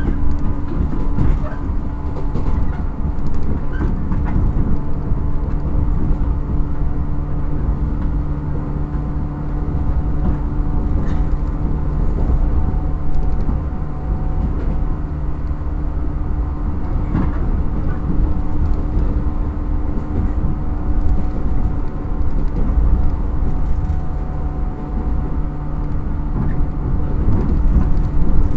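Running sound inside a JR 115 series electric multiple unit motor car (MoHa 114) at speed: a steady rumble of wheels on rail with a constant hum from the MT54D traction motors and gearing, and a few sharp clicks from the track.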